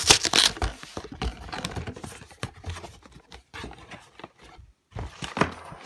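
Cardboard box being handled and turned over close to the microphone: irregular rustling and scraping with sharp knocks, loudest at the start and again near the end.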